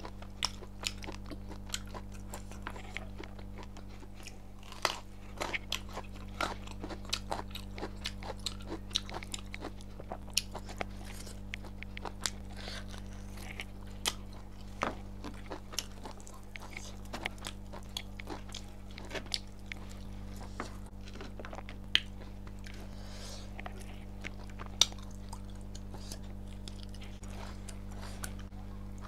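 Close-up chewing and biting of pork, a dense run of sharp little crunches and wet clicks, over a steady low hum.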